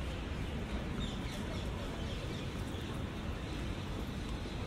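Steady hiss of rain with wet city street ambience, even and unbroken, with a few faint high chirps about a second in.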